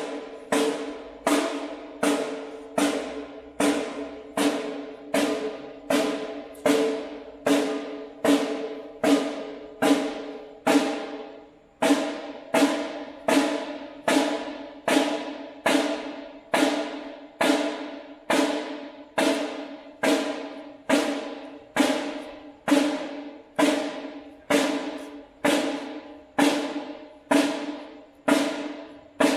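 A single drum of a drum kit struck one hit at a time at a steady, even pace, about once every three-quarters of a second, each hit ringing out at the same pitch before the next: a drum soundcheck.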